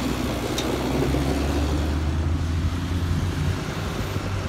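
New Holland tractor's diesel engine running steadily as it tows a trailer of wrapped bales past, a continuous low drone. A short click comes about half a second in.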